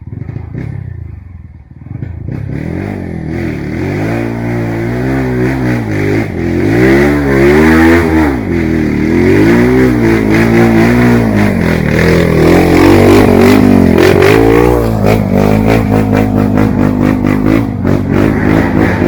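Trail dirt bike engine revving up and down over and over as the throttle is worked hard, quieter at first and loud from about two seconds in.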